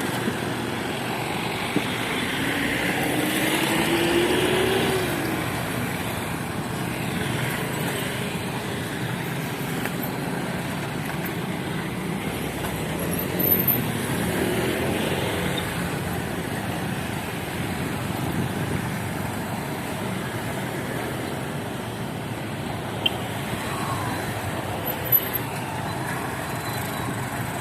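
Roadside traffic noise from motor vehicles passing. A few seconds in, one engine's pitch rises as it speeds up and the sound swells, then the noise continues steadily.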